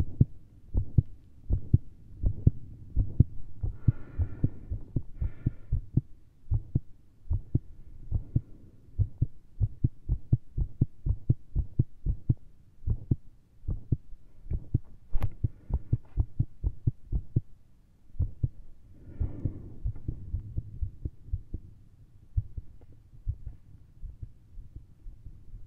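A human heartbeat heard through a stethoscope: fast, low thuds at about two to three a second, unevenly spaced. This is a caffeine-driven racing, very irregular rhythm with skipped beats (PVCs).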